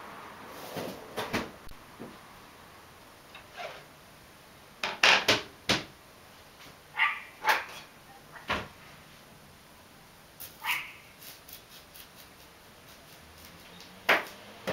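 A scattering of short, sharp animal calls, three loud ones in quick succession about five seconds in and single ones later, over a quiet background.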